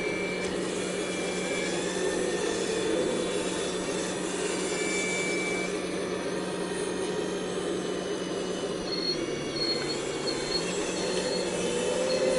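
Full-size excavator's diesel engine running steadily while it digs in hard pan, its low engine tone dipping briefly about nine seconds in.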